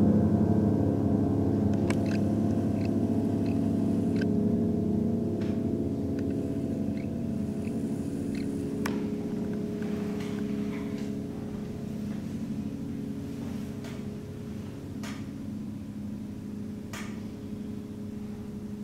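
A long held chord from piano and cellos ringing on and slowly dying away, with a few soft clicks over it.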